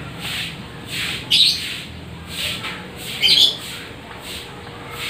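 Newborn American bully puppies crying in repeated high-pitched squeaks and whimpers, with two louder squeals about a second and a half and about three seconds in.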